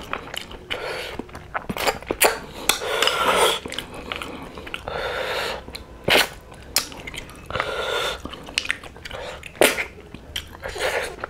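Close-miked eating of snail curry by hand: snails sucked from their shells and chewed, with many sharp mouth clicks and several noisy stretches of about a second each.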